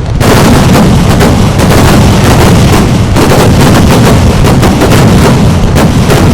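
A dense, unbroken barrage of fireworks explosions, the blasts running together into one continuous, very loud volley of cracks and booms.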